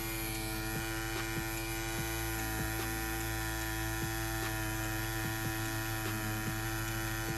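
Rhein EM145 wireless rotary pen tattoo machine running with a steady motor hum while its 3-round liner needle works into practice silicone.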